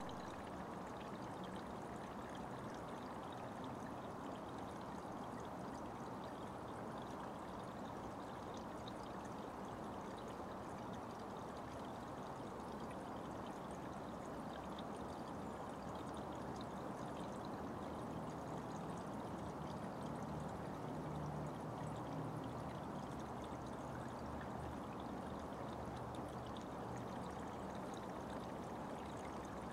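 Small forest brook or spring running steadily: a continuous, even rush of flowing water.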